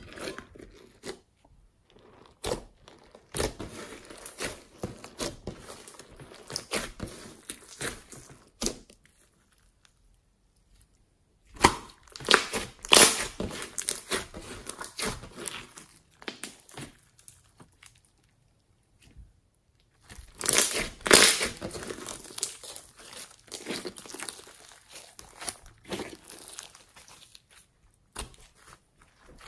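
Hands squishing, stretching and folding a large mass of glossy slime, giving wet crackling and popping clicks as air pockets burst. The crackling comes in three spells, with two brief quiet pauses between handfuls.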